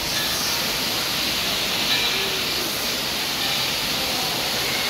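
Steady hiss of water spraying and pouring from an indoor water-park play structure.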